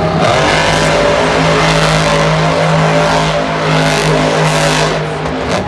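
Monster truck's supercharged V8 engine running loud at steady high revs as the truck drives across the dirt floor, easing off about five seconds in.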